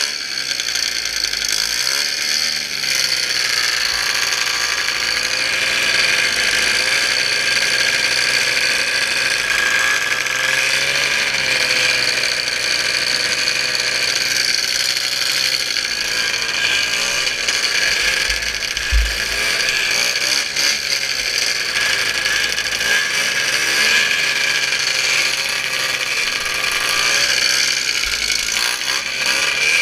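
A racing snowmobile's two-stroke engine running hard at high revs, with a steady high-pitched whine, and a single low thump about two-thirds of the way through.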